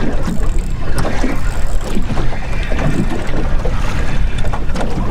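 Wind buffeting the microphone and choppy water slapping around a small anchored boat, with scattered irregular knocks.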